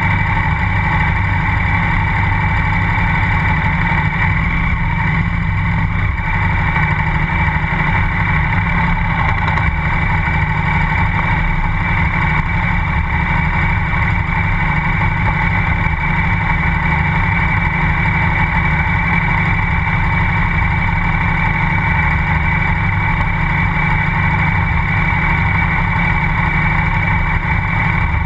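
KTM 990 SMR's V-twin engine and exhaust running steadily as the bike is ridden, picked up from right beside the muffler.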